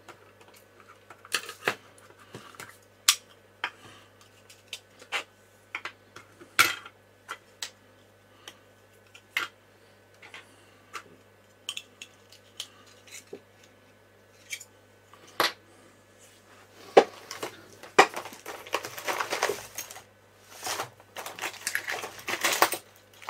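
Small parts being handled on a workbench: scattered sharp clicks and taps of screws and plastic pieces, then denser rummaging clatter over the last several seconds.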